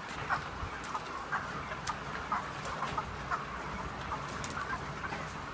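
Many broiler chickens in a poultry shed clucking, lots of short overlapping calls, over a steady low hum.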